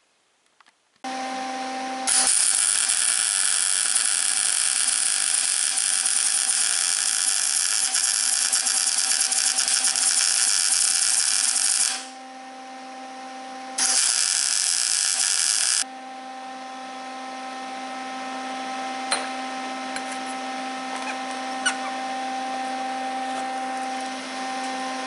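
MIG welder laying a bead on a steel wheel-bearing race in an aluminum hub: a loud arc hiss for about ten seconds, a short pause, then a second burst of about two seconds. Under it, a steady hum with fixed tones runs on. The weld is meant to shrink the race as it cools so it comes out of the hub easily.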